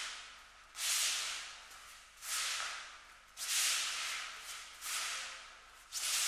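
Repeated swishes, about one every 1.2 seconds, each starting sharply and fading: feet sliding across the mat in aikido tai sabaki stepping practice.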